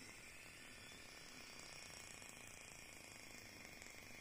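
Faint running sound of a Fleischmann BR 03 model steam locomotive going by on its track: a quiet, steady mechanical whirr with a fine, fast ticking.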